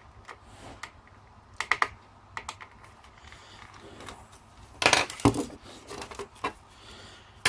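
Irregular small clicks and taps of hard plastic and metal parts being handled, as an old telephone is taken apart, with a louder cluster of knocks about five seconds in.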